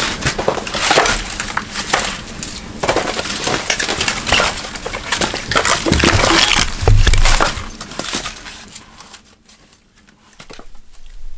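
Split firewood logs being handled and stacked on a pile, with irregular wooden knocks and clatters as they are set down and shifted. The heaviest thumps come about six to seven seconds in, and the handling falls quiet near the end apart from a few light knocks.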